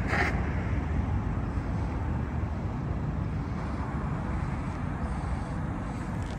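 Steady rumble and hiss of road traffic outdoors, with a brief higher-pitched sound at the very start.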